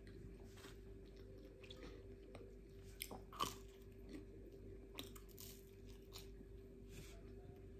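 Close-up mouth sounds of someone eating a brioche: a few soft bites, smacks and chewing, the loudest about three and a half seconds in, over a faint steady hum.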